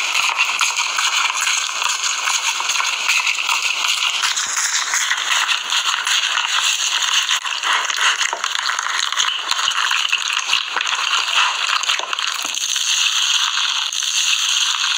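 Slime full of small foam beads being pressed and squished by hand, giving a dense, continuous crackling of the beads.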